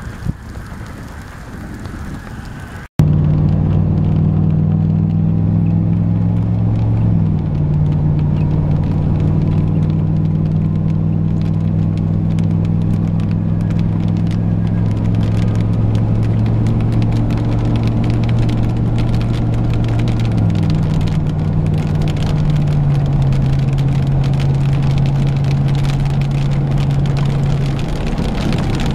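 Steady low drone of a car's engine and road noise heard inside the moving vehicle, shifting slightly in pitch a few times. It starts abruptly about three seconds in, after a stretch of wind buffeting the microphone.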